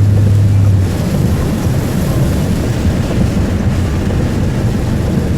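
Car driving along a storm-flooded road, heard from inside the cabin. A steady low hum gives way about a second in to a rougher, noisier rumble that lasts to near the end.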